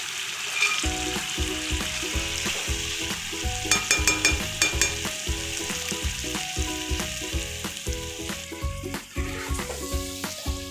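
Chicken curry gravy sizzling and simmering in a pan on a low flame, a steady hiss. Background music with a steady beat plays over it.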